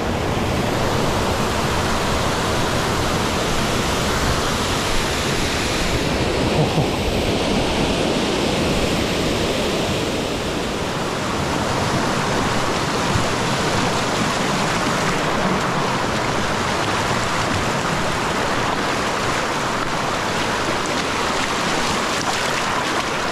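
A mountain stream's water rushing steadily.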